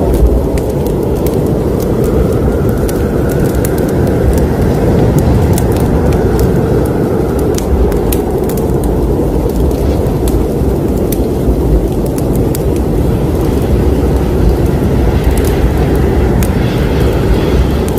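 Wood fire burning in a fireplace: a steady low roar of flames with many scattered crackles and pops.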